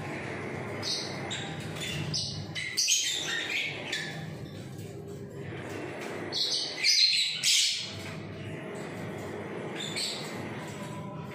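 A roomful of caged small breeding birds calling: a busy run of shrill chirps and squawks, loudest about seven seconds in, over a steady low hum.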